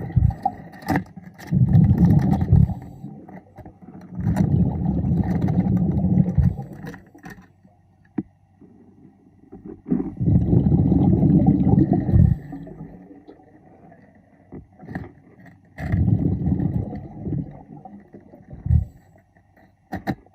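Underwater recording of a diver breathing out through a regulator: a bubbling rush comes every four to six seconds and lasts one to two seconds each time. Scattered sharp clicks sound between the exhalations.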